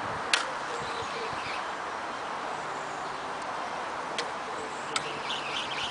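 Steady outdoor wind noise with a sharp click about a third of a second in and two lighter clicks later, from handling the spod rod and reel. Faint bird calls start near the end.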